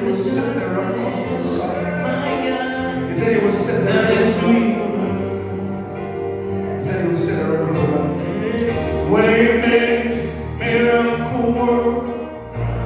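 Gospel worship music: voices singing over a band accompaniment with steady bass notes.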